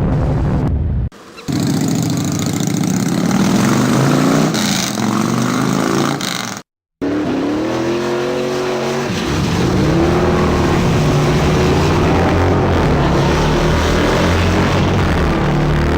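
A vehicle engine revving, its pitch rising and falling repeatedly, broken by two short abrupt cuts, one about a second in and one near the middle.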